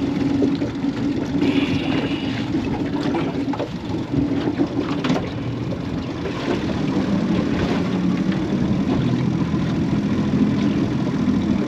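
Outboard motor of a small aluminium boat idling, its note dropping lower about halfway through, with a few light knocks.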